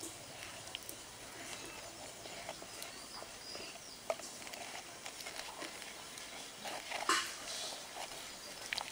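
Wooden dal masher churning soft-boiled lentils in a pot: faint wet stirring with scattered light knocks of wood against the pot, and one louder brief sound about seven seconds in. The dal is cooked through and is being mashed smooth.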